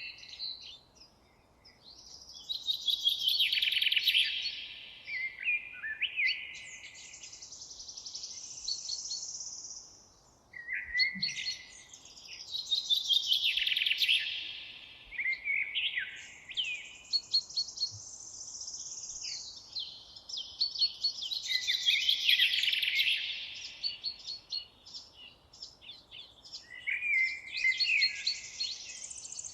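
Songbirds singing in a forest: long, busy phrases of quick notes come back about every eight or nine seconds, each followed by a higher trill, with fainter chirps in between.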